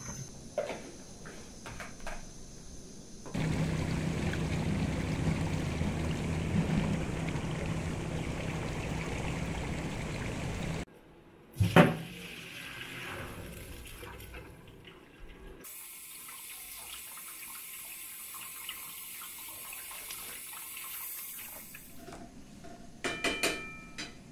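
Water pouring and running as rice and water are tipped into a plastic colander to drain. A steady rush lasts several seconds, there is one sharp knock, a softer trickle follows, and a few light clinks come near the end.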